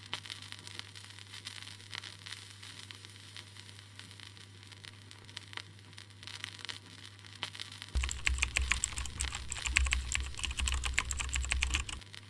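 Old-film crackle sound effect: irregular clicks and crackle over a faint hum, turning louder and denser with a low rumble about eight seconds in, then stopping just before the end.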